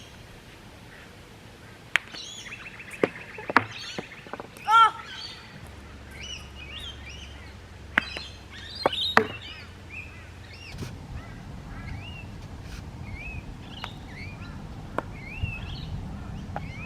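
Small birds chirping over and over in short, quick up-and-down calls, with a few sharp clicks about two, three and a half, eight and nine seconds in.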